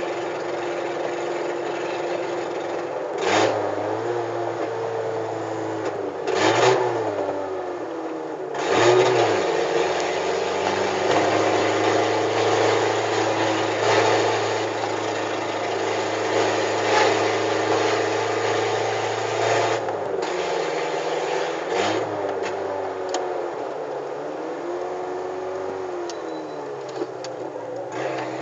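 A VW Gol G4's engine with a straight-piped exhaust, driving. In the first ten seconds it revs up through the gears, its pitch dropping sharply at three gear changes. It then runs steadily, eases off around two-thirds of the way in and picks up again.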